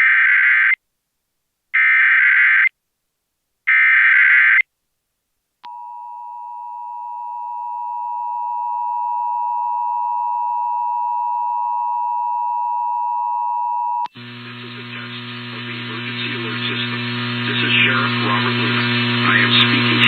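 Emergency Alert System activation: three SAME header data bursts, each a screechy warble about a second long, then the EAS two-tone attention signal, held steady for about eight seconds and swelling in volume at first. It cuts off sharply, and a loud hum with a noisy hiss over it takes over for the rest.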